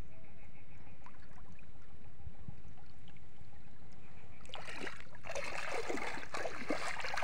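Shallow water splashing and sloshing around a person's legs as he wades, starting about halfway through in irregular strokes, over a low steady rumble.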